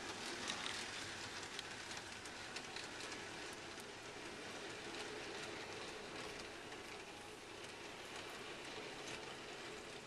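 Model Terrier tank locomotive and coal trucks running on the layout's track, a faint steady rattle with scattered light clicks of wheels over rail joints.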